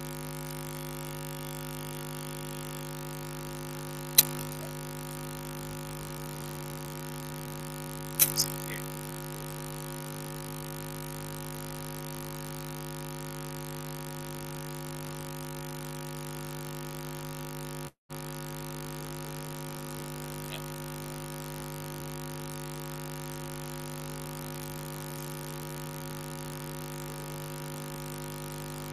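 Steady electrical hum, a drone of several stacked tones, in the recording of a lecture room. Two sharp clicks break through, about four and eight seconds in, with a fainter one later.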